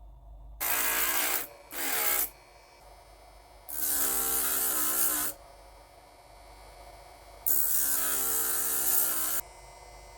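Small power tool worked against metal in four bursts, a whining motor with a harsh grinding rasp each time it bites, the longest near the end, idling quieter in between.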